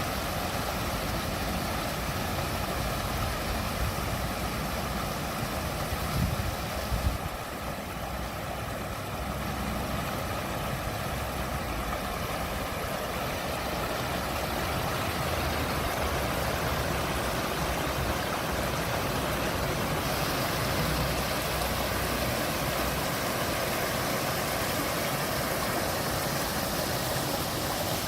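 Water flowing steadily in a landscaped garden water feature, an even rushing with a low rumble underneath. A couple of brief louder knocks come about six to seven seconds in.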